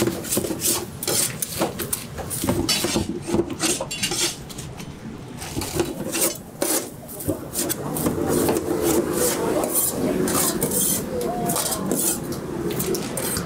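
Metal spatula scraping and clanking on a flat griddle while scallion pancakes cook, in many short repeated strokes.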